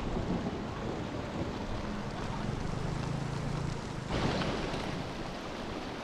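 Steady rushing noise of wind buffeting the microphone over a swollen, fast river, with a faint low hum for a couple of seconds in the middle.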